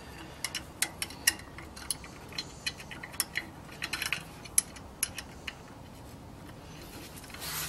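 Light, irregular metallic clicks and clinks of a wrench and nut on a suspension bolt as the nut is threaded on by hand, stopping about five and a half seconds in.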